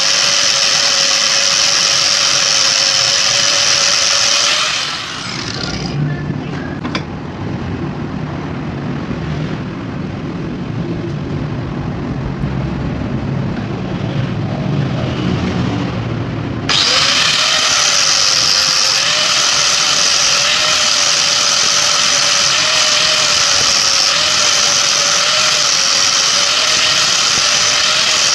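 Angle grinder grinding rust off a steel hammer head: a steady high whine over a harsh hiss. From about five seconds in the grinding drops away for roughly twelve seconds, leaving a quieter, lower and duller sound, then the whine and hiss come back at full level.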